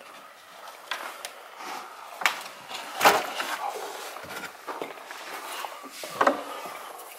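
Footsteps and handling noise as someone moves through brush and debris: irregular crunches, scuffs and knocks, with a sharp crack about three seconds in and another loud knock about six seconds in.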